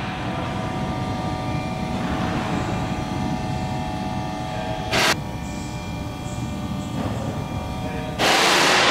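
Steady mechanical hum with several held tones, broken by loud hissing bursts: a short one about five seconds in and a longer one near the end.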